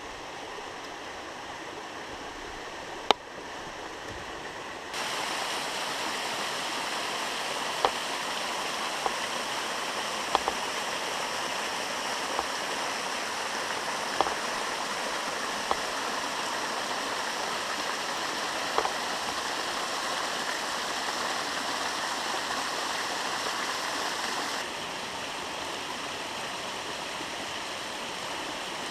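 Steady rush of flowing water over rocks, like a stream or small falls. It gets louder about five seconds in and eases slightly near the end, with a few faint clicks over it.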